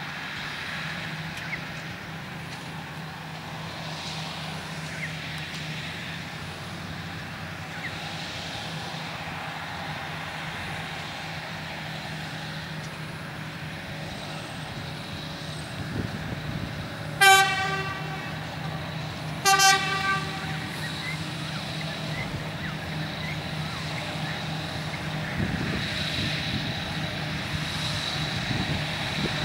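A narrow-gauge sugar cane train's diesel locomotive sounds its horn twice, two short blasts about two seconds apart, over a steady low engine drone as it approaches hauling a full load of cane.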